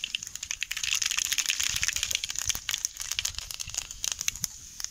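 Cumin and mustard seeds crackling and popping in hot oil in a large metal kadai, the tempering step for a curry. It is a dense run of sharp pops over a hiss, thinning out near the end.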